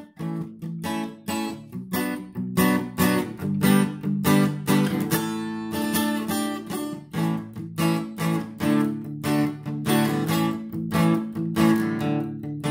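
Acoustic guitar playing the repeating intro riff of D, A, B minor and G chords with a melody picked over them, in a steady rhythm of strokes. The player says the guitar is obviously out of tune.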